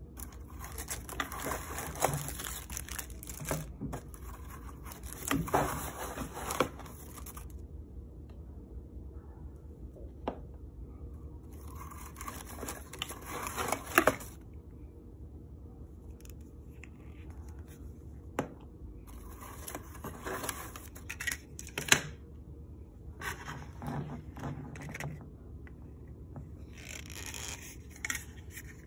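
Cardboard box and honeycomb paper packing wrap being handled: rustling and scraping in several bursts, with a few sharp taps in between.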